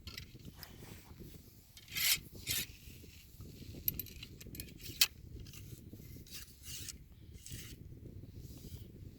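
Ramrod scraping in the bore of a 16-gauge Damascus-barreled muzzle-loading shotgun, forcing a tight, press-fit lead round ball down the barrel in a series of short rasping strokes, the loudest about two seconds in, with a sharp click about five seconds in.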